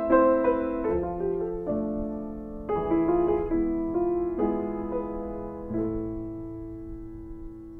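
Solo piano playing a slow, gentle passage: chords and notes struck further and further apart, ending on a held chord about six seconds in that slowly fades.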